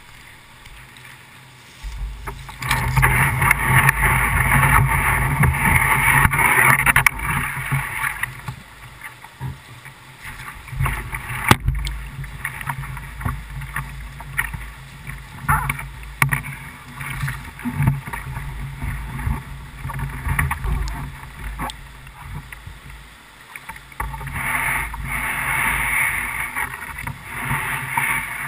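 Rushing whitewater of a river rapid, picked up by a GoPro camera, with close splashing and handling knocks from the kayak and paddle. It swells loudest a couple of seconds in and again near the end, and there is one sharp knock near the middle.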